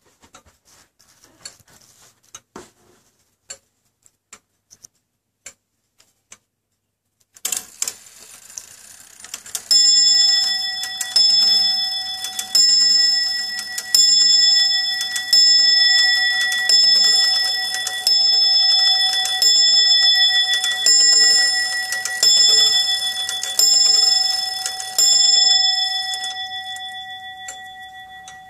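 Weight-driven eight-day longcase clock movement with faint escapement ticks. Then the strike train whirs into action and the hammer strikes the hours on its bell, about twelve blows roughly one and a half seconds apart. The last blow is left ringing and fading.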